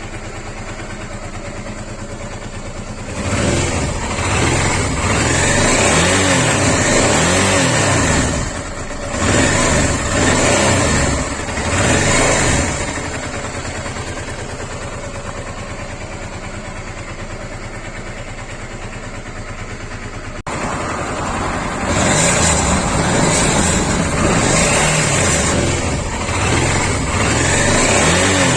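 Honda Africa Twin RD07's 742 cc V-twin engine idling and revved in several blips, then held at raised revs, with the mechanical noise the owner is tracing still present, which he links to the timing (distribution). The engine sound cuts out briefly about two-thirds of the way through.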